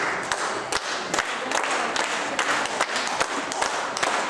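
Audience applauding: a steady run of hand claps that breaks out suddenly and keeps going.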